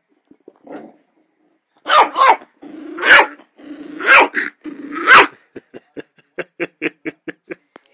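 Miniature dachshund puppy barking, six loud barks with growling between them, then a fast run of short yaps about five a second. He is barking at his own reflection.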